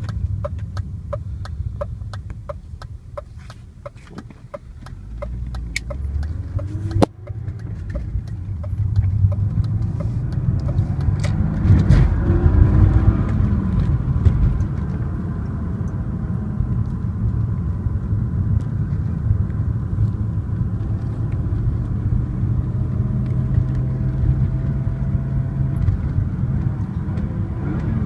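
BMW E36 M3's S52 straight-six engine running with a low, muffled rumble that the owner cannot pin down. A regular ticking sounds over it for the first several seconds; after a sudden break about seven seconds in, the engine grows louder and swells around twelve seconds, then settles into a steady drone.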